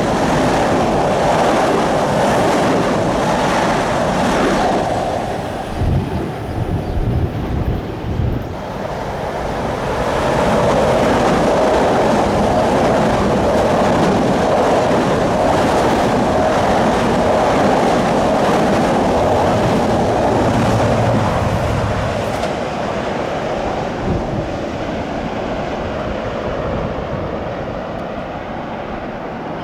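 Long Island Rail Road train running through the station, a loud, steady rush and rumble of wheels on rail that eases off a little near the end.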